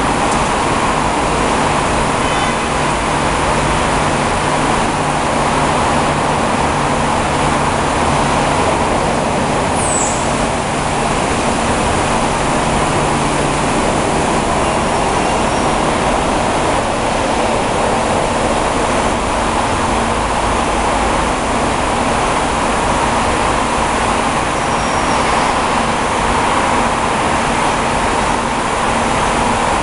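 Steady machinery noise from a Zayer KF3000 CNC bed mill running, with a faint low hum in the first part and a brief high squeal about ten seconds in.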